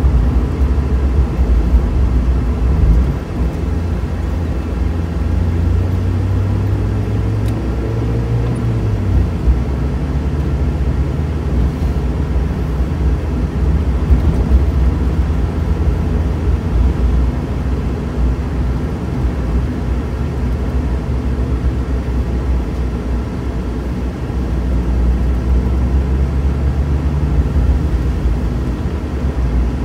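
Mazda Miata's four-cylinder engine running under way, with road and wind rumble heard from inside the open-top cabin. The engine note climbs for a few seconds starting about six seconds in, then drops back, and rises briefly again near the end.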